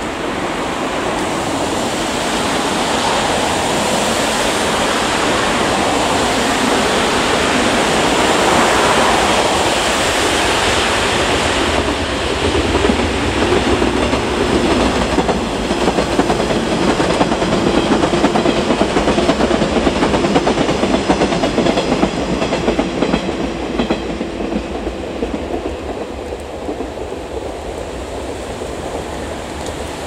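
JNR Class 485 electric train passing at speed. Its wheels clack over the rail joints as it approaches, goes by and fades away, loudest in the middle. The rush of typhoon wind and rain on the microphone runs underneath.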